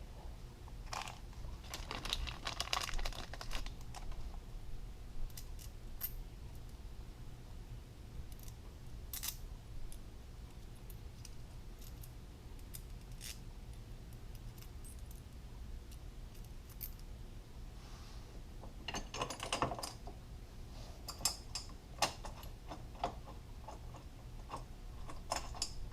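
Scattered light metallic clicks and clinks from handling a steel bolt and washers being fitted into a threaded hole, coming in short clusters about two seconds in and again near the end.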